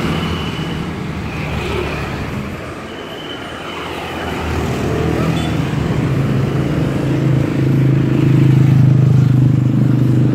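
Busy street traffic of passing motorbikes and cars, with an engine running close by that grows louder through the second half.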